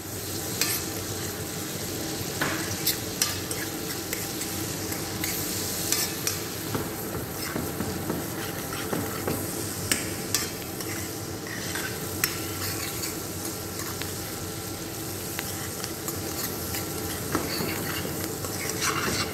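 Diced onions sizzling in butter in a stainless steel pan, sautéed to soften without browning, with a metal spoon clicking and scraping against the pan as they are stirred.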